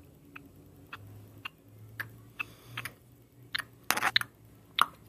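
Irregular light clicks and taps, roughly one or two a second, with a louder cluster about four seconds in, over a faint low hum.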